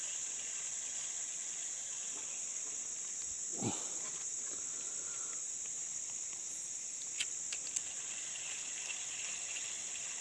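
Steady high-pitched insect chorus. A short falling sound comes a few seconds in, and a few sharp clicks come about seven seconds in.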